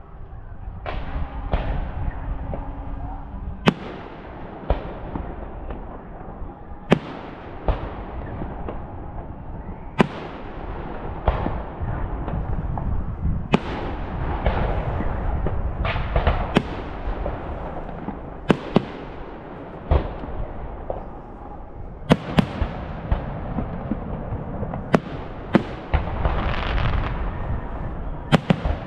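Aerial fireworks display: shells bursting with about twenty sharp bangs at irregular intervals, over a continuous low rumble.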